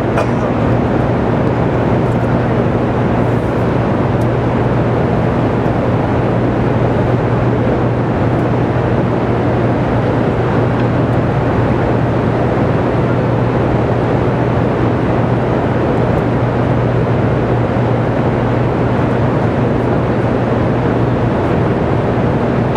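Steady, loud hum of the Hoover Dam hydroelectric power plant's running generators, a constant low tone over a wide, even rush of machine noise.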